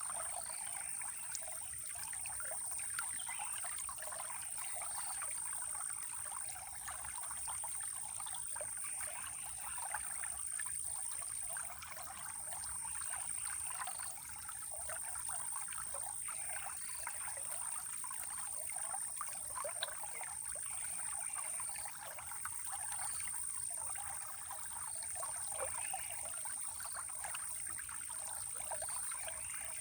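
Running water trickling and splashing steadily, as in a small stream, with a steady high-pitched whine above it.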